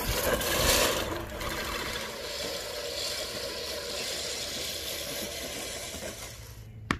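American Lawn Mower Company 14-inch four-blade push reel mower being pushed through grass, its spinning reel whirring and clattering as it cuts. It is loudest in the first second or so, then fainter, with a single sharp click near the end.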